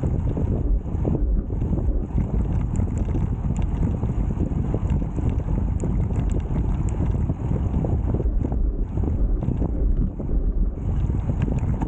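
Wind buffeting the microphone of a camera riding along on a road bike: a steady, heavy low rumble that rises and falls slightly.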